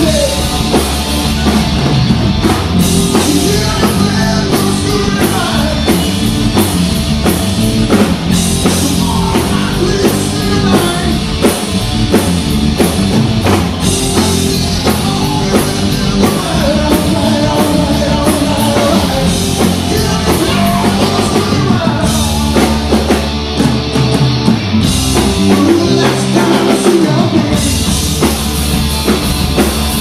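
Live hard rock band playing: distorted electric guitars, bass guitar and drum kit, with a singing voice over them.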